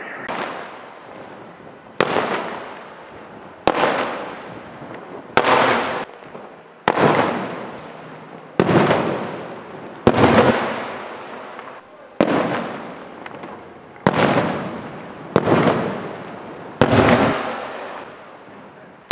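Maltese festa aerial firework shells bursting overhead: about ten sharp, loud bangs, one every one and a half to two seconds, each trailing off over about a second.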